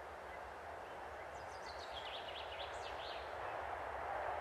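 Distant 2M62U twin-section diesel locomotive hauling a freight train, its rumble growing steadily louder as it approaches. About a second and a half in, a small bird sings a short run of quick high chirps.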